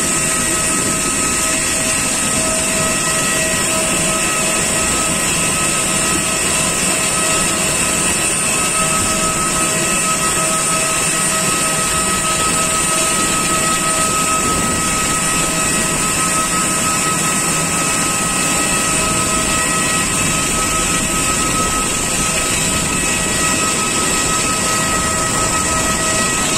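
Steady jet turbine whine from aircraft on the apron: several held high tones over a constant rush, unchanging throughout.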